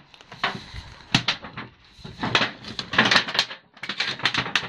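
Thin galvanized sheet-metal cladding being pressed and worked by hand along a pipe, giving clusters of sharp metallic clicks and rattles.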